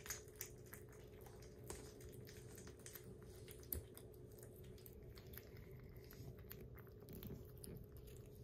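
Kittens lapping and chewing soft weaning food from ceramic bowls: faint, quick wet clicks and smacks in an irregular patter.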